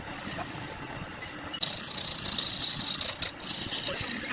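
Wood lathe running, with a steady high whine that comes in about a second and a half in.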